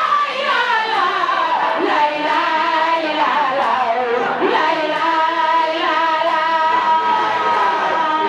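A woman singing an Islamic devotional chant into a microphone, her amplified voice holding long, wavering notes that slide down between phrases.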